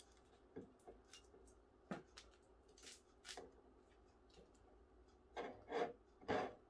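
Quiet handling sounds of a wine bottle's top being worked by hand: light rubbing and scraping with scattered soft taps, and a few louder knocks near the end.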